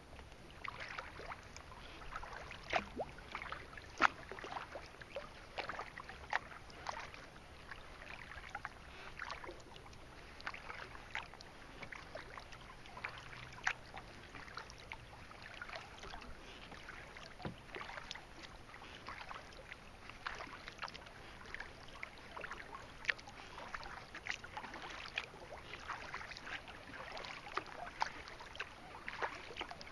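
Small waves lapping and splashing against a kayak's hull on choppy water: a continuous run of small, irregular splashes.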